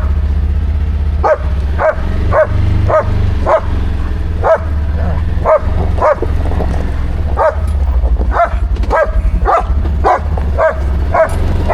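A dog barking over and over, about two barks a second with a few short pauses, while riding on a vehicle, over the steady low hum of its engine running.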